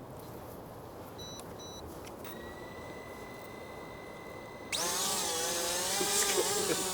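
Short electronic beeps, then a steady high beep tone lasting about two seconds, before the XK X450 VTOL model's electric motors spin up suddenly about five seconds in and keep running with a steady whine.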